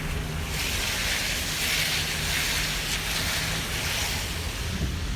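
Car driving, heard from inside the cabin: a steady hiss of tyres and wind over a low engine rumble.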